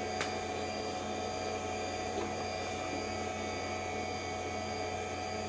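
Steady electrical hum from a running Power Macintosh 7500 and its CRT monitor, with one faint click just after the start.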